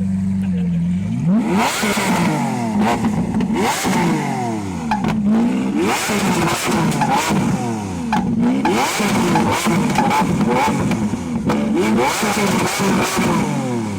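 Loud-exhaust car engine idling, then revved hard in repeated blips from about a second in, the pitch rising and falling roughly once a second.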